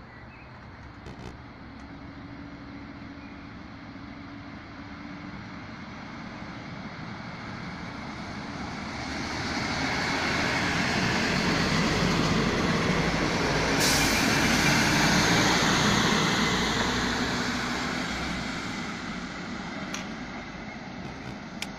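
A Regionova diesel railcar running along the track beside the platform: its engine and wheel noise grow louder to a peak about ten to seventeen seconds in, then fade as it draws away. A brief high hiss comes about fourteen seconds in.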